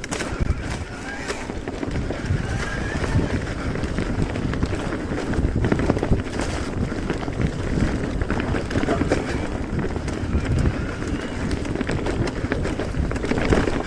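Mountain bike riding over a rough trail: wind rushing over the microphone, with tyre noise and a run of sharp knocks and rattles from the bike over bumps.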